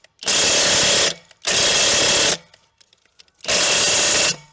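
Kress 3/4-inch cordless impact wrench hammering on a 30 mm tractor wheel nut in three bursts of about a second each, with short pauses between. The nut does not break loose.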